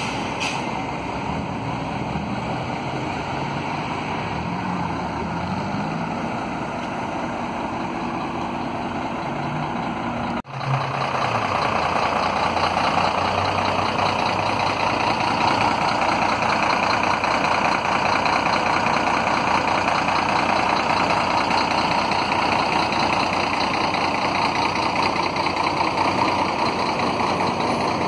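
Diesel engines of coach buses idling, among them a Scania-chassis coach, a steady low running sound. It jumps louder after a break about ten seconds in.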